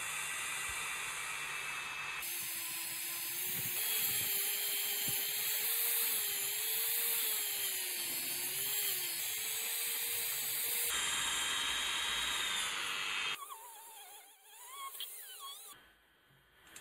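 Handheld rotary tool running with a buffing wheel, polishing the metal handset of an antique magneto telephone. It gives a steady high whine whose pitch wavers slightly, and it drops away in the last few seconds.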